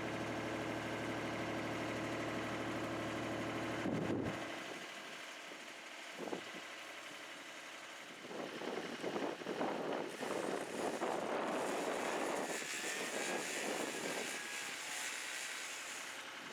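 An engine running steadily, cutting off abruptly about four seconds in. Later comes a stretch of irregular rustling and crackling.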